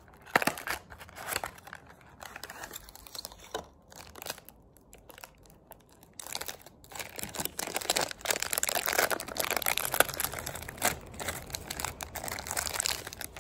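Plastic wrapper of an ice cream sandwich crinkling and rustling as it is handled and pulled from its cardboard box, with small clicks of card and packaging. The crinkling grows busier and louder in the second half.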